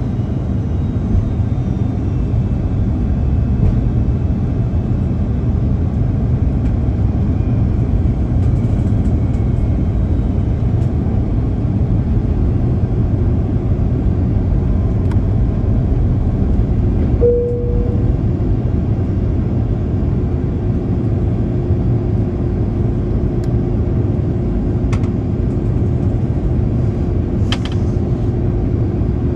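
Cabin noise of an Airbus A330-203 descending toward landing: a steady low rumble of airflow and its General Electric CF6 turbofan engines, heard from a window seat beside the wing. A steady hum sets in about midway, with a brief higher tone shortly after it.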